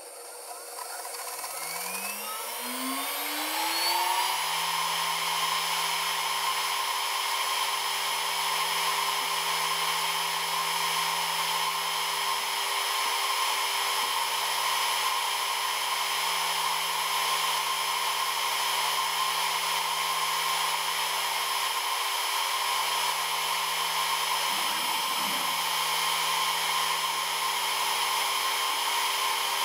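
800 W CNC router spindle spinning up, its whine climbing in pitch over the first few seconds, then running steadily at full speed.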